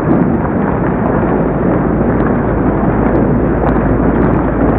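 Heavy hail and rain falling, a dense, steady din of countless impacts.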